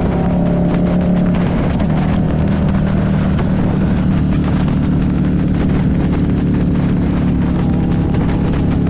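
Buell 1125CR's V-twin engine running steadily while riding at speed, with wind rush over it. The engine note wavers briefly a second or two in, then holds an even pitch.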